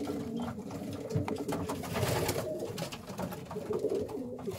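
Racing pigeons cooing in the loft, low wavering coos overlapping, with a few light clicks among them.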